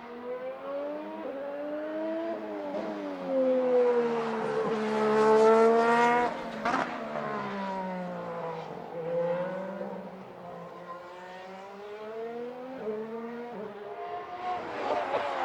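2017 Formula 1 cars' turbocharged 1.6-litre V6 hybrid engines running on track, the engine note rising and falling through gear changes. It is loudest about five seconds in as a car comes close, then fades.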